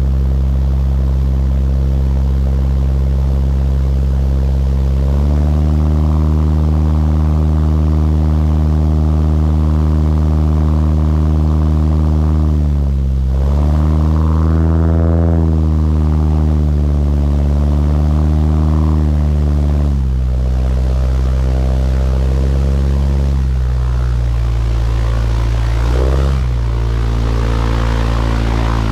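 A Cessna 170B's six-cylinder engine and propeller running as the ski-equipped plane taxis on snow. The engine speed steps up about five seconds in, dips and surges again in the middle, then falls back to a lower, steady run over the last few seconds, with a brief blip of throttle near the end.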